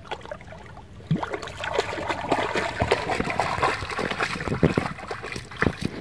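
A dog wading through shallow lake water, splashing and sloshing in quick irregular strokes that pick up about a second in.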